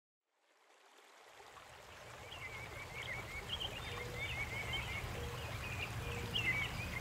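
Creek ambience fading in from silence: a steady rush of flowing water over a low hum, with birds chirping from about two seconds in.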